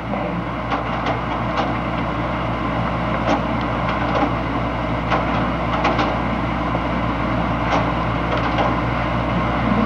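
Slide projector's cooling fan running with a steady low hum and hiss, with scattered faint clicks.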